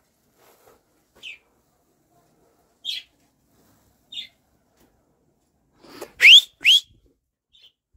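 Two loud, short whistles rising in pitch, one right after the other about six seconds in. Before them come three short, high chirps spaced about a second apart.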